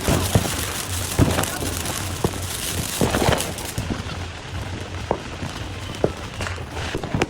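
Fireworks going off: irregular sharp bangs and crackles, with the loudest near the start and around three seconds in.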